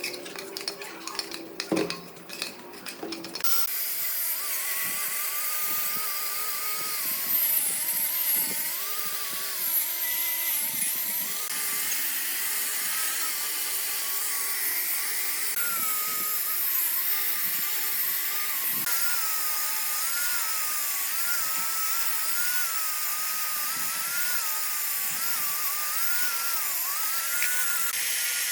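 A few light taps, then a small high-speed power tool starts about three and a half seconds in and runs steadily. Its high whine wavers up and down in pitch.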